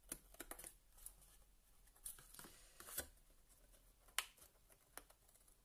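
Mostly quiet handling of a patterned-paper card box: faint scattered taps and short rustles of card, with a sharper click about four seconds in.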